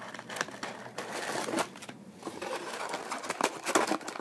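Trading card pack being handled and opened: the foil wrapper crinkling and cards rustling and clicking against each other, irregular and busiest near the end.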